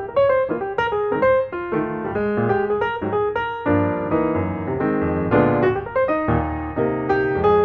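Background piano music: a steady flow of single notes and chords.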